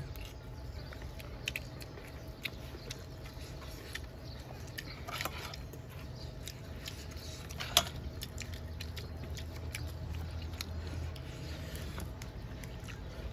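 People eating with their hands: soft chewing and mouth smacks, with scattered small clicks of fingers and a spoon in the food, and one sharper click a little before eight seconds in.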